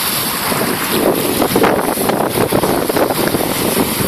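Steady wind buffeting the microphone, with small waves washing up the shore underneath.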